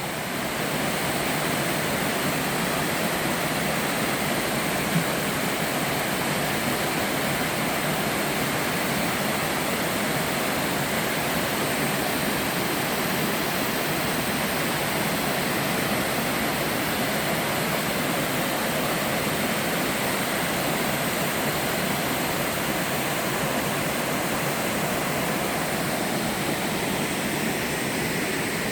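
A sliding waterfall, the stream running down an inclined rock slab, makes a steady, even rushing of water with no change in level.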